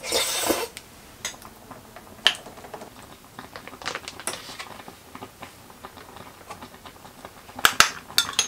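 Metal spoon clinking and scraping against a small ceramic bowl as persimmon pulp and gochujang are stirred together. A brief noisy scrape comes at the start, then scattered light clicks, with a few sharper clinks near the end.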